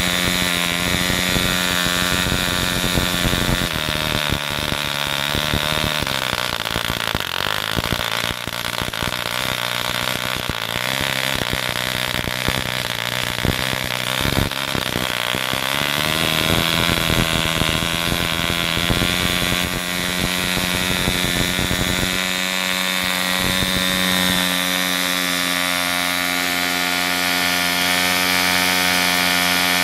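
Small single-cylinder model airplane diesel engine running on a test stand with a loud, high buzzing note. Its speed wavers and sags through the middle and then holds steady at a high pitch.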